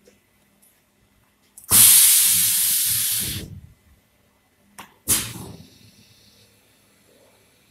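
Spray gun of an automatic cabinet door painting machine spraying finish coat with a loud air hiss. The first burst comes about two seconds in, lasts nearly two seconds and tails off. A second, short burst comes about five seconds in.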